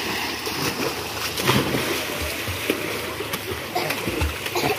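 Water splashing and churning as several people swim and thrash in a water tank, with a run of sharper splashes.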